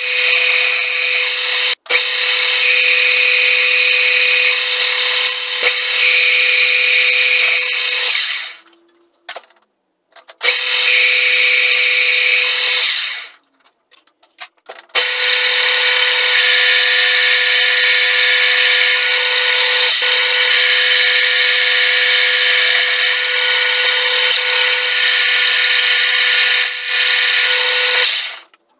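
Metal lathe cutting a large metal disc: a steady machine whine with a high, even cutting note. The sound drops away twice for a second or so, about nine and fourteen seconds in, then resumes.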